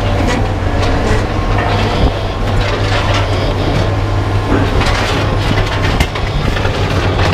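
A heavy-equipment engine running steadily with a low hum, with scattered metal knocks and clatter from scrap being handled.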